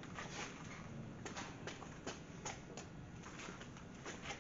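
Faint, irregular light clicks and taps of hand work on metal suspension parts, a dozen or so short ticks over a low steady background.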